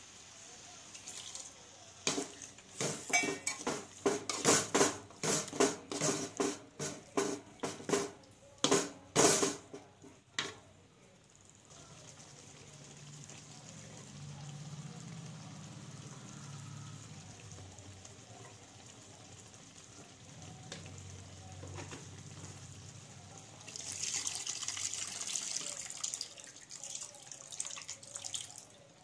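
A steel spoon stirring and scraping thick curry paste in an aluminium pot: a quick run of clanks and scrapes for several seconds, then quieter. Near the end, liquid splashes into the pot for a few seconds as tamarind water is squeezed in.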